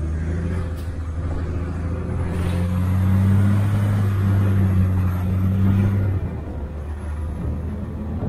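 City bus engine and road noise heard from inside the cabin while the bus is driving. A steady low drone grows louder about two seconds in and drops back about six seconds in.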